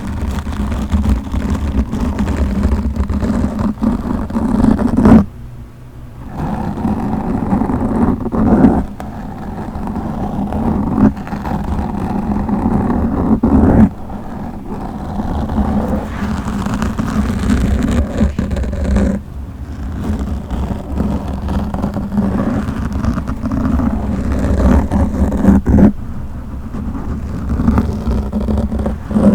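Fingers scratching and rubbing directly on a microphone: a loud, dense crackling rumble with pops, stopping briefly about five seconds in and twice more later.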